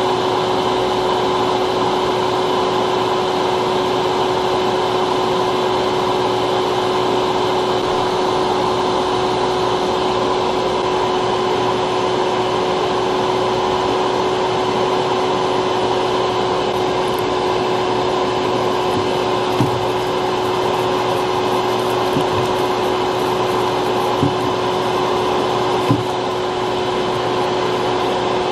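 A small electric fan or blower motor running steadily, with a constant hum and airy rush. A few faint light clicks come in the latter half.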